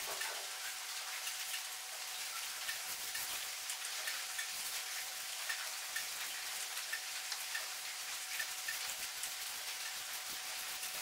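Small paint roller rolling thick, wet black coating onto a plywood subwoofer cabinet: a steady fine crackle with many small sticky ticks. A faint steady tone sits behind it.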